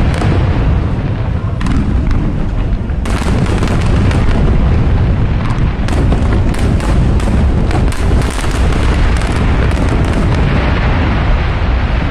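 Aerial fireworks going off in a dense, continuous barrage of booms and crackles, the bursts packing closer together from about three seconds in.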